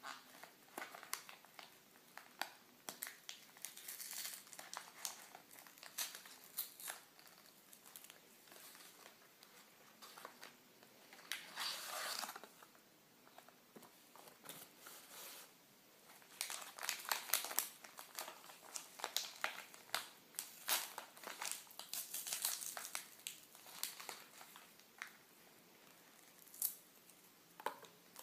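Raspberry jelly packaging being opened and handled: the cardboard box and the paper packet inside crinkle and rustle in irregular bursts of sharp crackles. A longer continuous rustle comes about twelve seconds in, and a dense run of crinkling a few seconds later.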